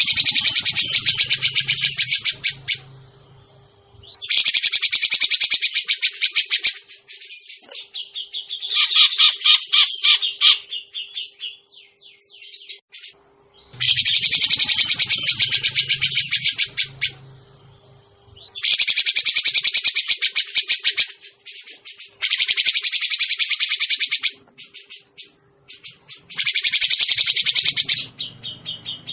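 Grey-cheeked bulbul (cucak jenggot) calls played as a bird-luring recording: about seven loud bursts of fast, rattling chattering notes, each two to three seconds long, with short pauses between them. A faint steady hum runs underneath.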